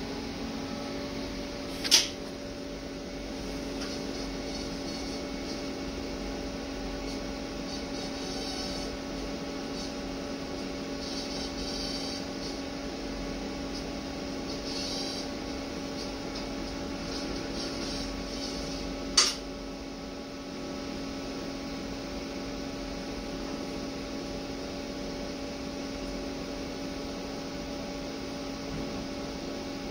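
Steady electrical machine hum with a low, constant tone, broken by two sharp clicks: one near the start and another about two-thirds of the way through.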